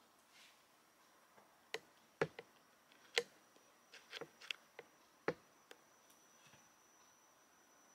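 About ten sharp, irregular clicks and taps over a few seconds against a faint background hush. A faint, thin high whine sets in near the end.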